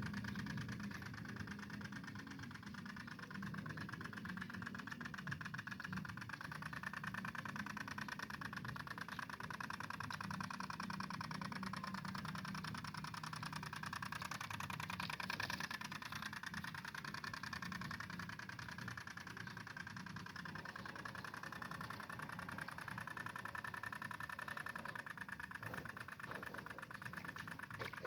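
Two-stroke engine of a G1000 mini tiller running steadily while it works the soil, its fast buzzing beat rising and easing slightly with the load.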